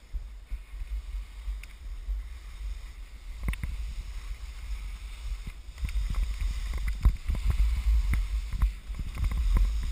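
Skis turning and scraping through wet, slushy spring snow, over a steady low rumble of wind on the microphone. Scattered sharp knocks and scrapes set in about three and a half seconds in and come thicker in the second half.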